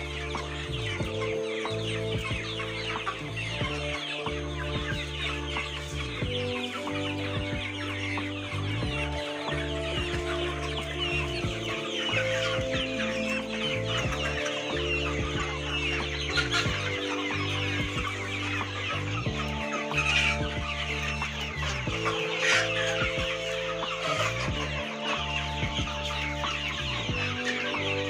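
A flock of laying hens crowding a feeder trough, many clucking at once without a break, over background music with a repeating pattern.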